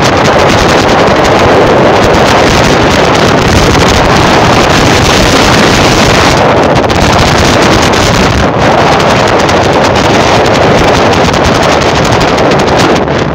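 Loud, steady wind rushing over the microphone of a fast-moving open vehicle, with road noise mixed in.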